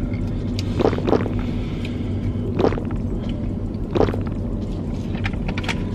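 Steady low hum of a parked car's idling engine and air conditioning inside the cabin, with four short eating and drinking sounds as soda is gulped from a bottle and food is chewed, two of them about a second in.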